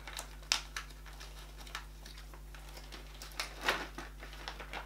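Faint scattered crunches and clicks of a dog chewing small, hard dried-duck treats, with a louder rustle of the treat bag about three and a half seconds in.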